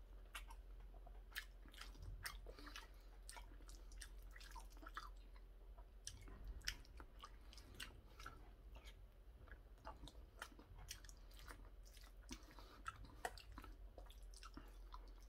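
Quiet chewing and wet mouth sounds of a person eating curry rice, with many short clicks scattered throughout. A metal spoon scoops from a stainless steel bowl between bites.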